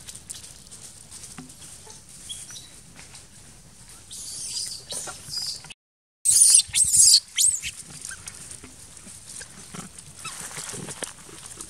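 Long-tailed macaques squealing in loud, high-pitched bursts with wavering pitch, in two bouts in the middle, the second and loudest about six to seven and a half seconds in.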